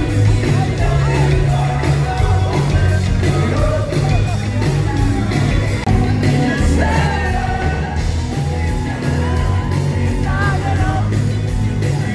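Live pop-rock band playing through a concert PA, with heavy bass, a steady drum beat and singing.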